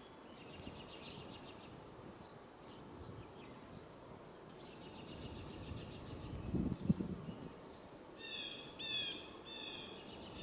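Small songbirds calling: two short rapid trills, then a quick run of short downslurred call notes near the end. There are a few faint clicks, and a low dull thump about seven seconds in.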